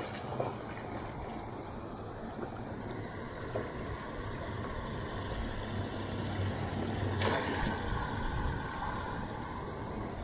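Steady rush of water pouring over a spillway weir. A hooked snook splashes at the surface at the start, and a short louder splashing noise comes about seven seconds in.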